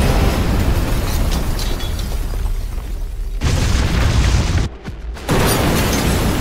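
Explosion sound effects: a long low rumbling blast, a fresh loud hit about three and a half seconds in, a brief near-silent gap around five seconds, then another sudden loud impact.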